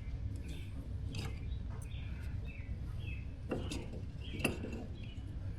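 A small bird chirping in short, repeated, falling notes over a low steady hum, with a few light clicks of tools and parts being handled.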